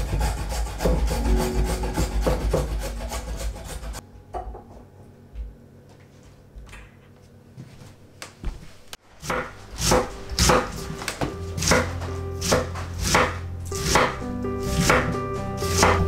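Hand-cranked rotary drum grater shredding carrots, a dense run of scraping strokes that stops about four seconds in. After a quieter stretch, a white cabbage is sliced into strips with steady slicing strokes about two a second.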